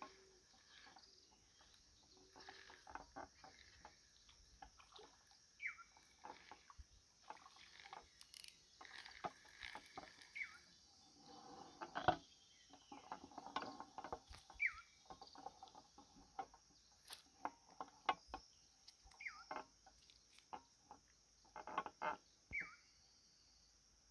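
Faint scattered clicks and knocks of handling, the sharpest a little after the middle, with a short falling bird call repeated every four or five seconds.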